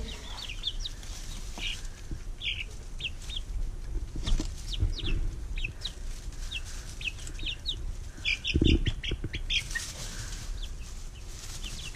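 Five-week-old chicks peeping, many short high cheeps scattered throughout. There is one dull thump about three quarters of the way through.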